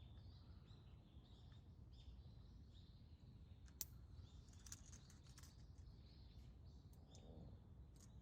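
Faint, scattered chirps of small birds over a low steady outdoor rumble, with a few sharp clicks around the middle, the loudest a little under four seconds in.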